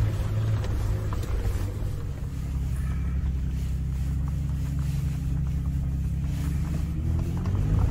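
Toyota FJ Cruiser's 4.0-litre V6 engine pulling off-road in low gear. Its pitch drops about two seconds in, holds steady, then rises again near the end as it revs up, with a few faint knocks over it.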